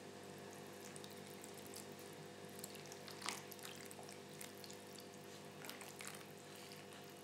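Faint wet squishing of a gloved hand working olive oil and white wine into flour as the wine is poured in, with a few soft ticks and one clearer splash about three seconds in. A steady low hum lies under it.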